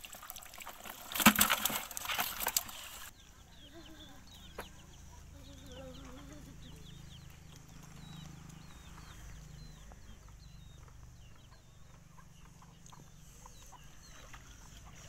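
Wet fish splashing and thrashing in a plastic bucket as they are worked out of a net, loudest about a second in. After an abrupt cut about three seconds in, chickens cluck in the background, with many short, high peeps.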